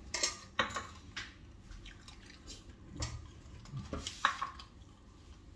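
A person chewing a mouthful of pork sisig close to the microphone, with scattered short wet smacks and clicks of the mouth.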